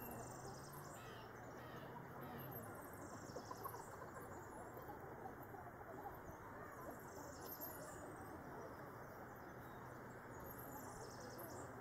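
Faint outdoor ambience: scattered high bird chirps and calls over a steady hiss.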